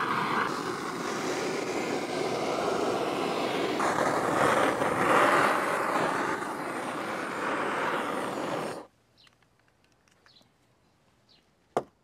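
Blowtorch flame running steadily as it singes the lamb, then cut off suddenly about nine seconds in. A single sharp click comes near the end.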